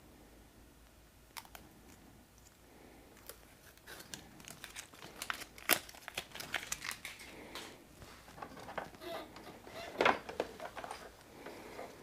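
Hands handling a small LED accent light and the 3M adhesive tape on its back: light crinkling and scraping with scattered small clicks, busier after the first few seconds.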